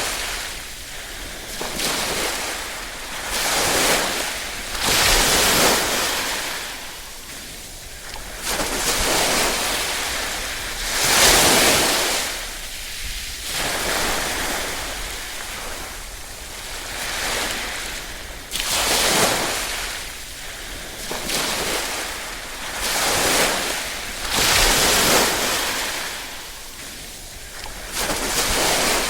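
Gentle waves washing in and drawing back, a wash of water noise that swells and fades every few seconds, some swells louder than others.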